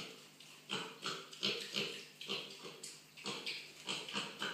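A four-and-a-half-month-old mini pig grunting: a string of short grunts, two or three a second.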